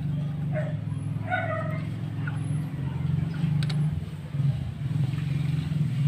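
A steady low motor drone, like an engine running nearby, with a few short, high, wavering cries in the first two seconds.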